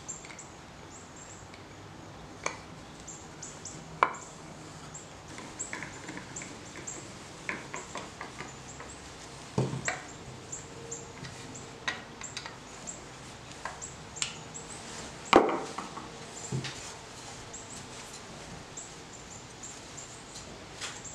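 Hand tools and a pine board being handled on a wooden workbench while handle hardware is fitted with a center punch and a hand screwdriver. Irregular light clicks, taps and scrapes, with a few sharper knocks about 4, 10 and 15 seconds in.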